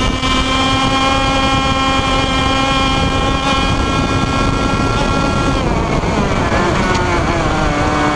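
IAME Leopard 125cc two-stroke kart engine running at high revs, its pitch creeping up as the kart pulls down the straight. About five and a half seconds in the revs start to fall steadily as the driver lifts off.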